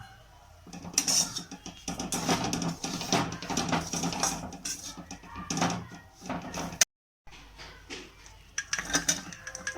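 Kitchen utensils clattering: quick, irregular metal knocks and scrapes of a spoon against a pot or dishes, with a brief cut to silence about seven seconds in.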